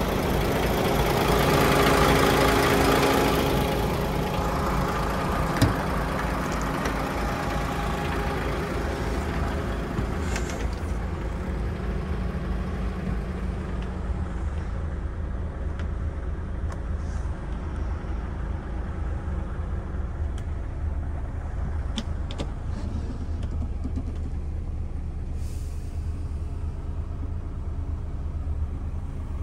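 DAF XF106's Paccar 460 bhp Euro 6 diesel engine idling steadily. It is louder for the first few seconds, then lower and muffled as heard from inside the cab. A sharp click comes about five and a half seconds in, and a few light clicks follow later.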